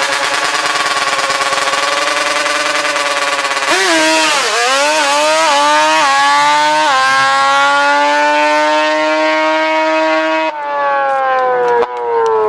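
Turbocharged Ford F-150 race truck's V8 making a drag pass. It is held at high revs on the two-step with a slightly wavering note, then launches about four seconds in and climbs in pitch with several quick drops as the transmission upshifts. It pulls up steadily and is cut off abruptly about ten and a half seconds in as the throttle is lifted at the end of the run.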